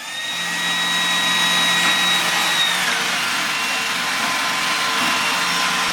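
Roomba 980 robot vacuum running: its vacuum motor spins up with a whine that rises in pitch over the first second, then runs steadily with suction and brush noise. The highest part of the whine drops away about three seconds in.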